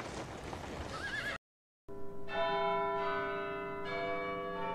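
A horse whinnies briefly over film background noise about a second in. After a short gap of silence, a sustained chord of bell-like chimes starts ringing at about two seconds, with new notes entering near four seconds and again near the end.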